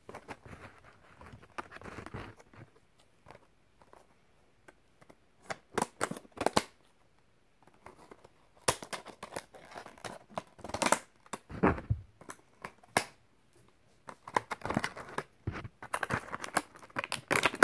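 Greenlight die-cast car blister pack being pried and torn open: irregular plastic crinkling and crackling, with sharp snaps of plastic and card now and then.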